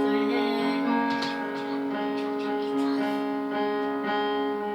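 Piano accompaniment to a slow pop ballad, playing long held chords between sung lines.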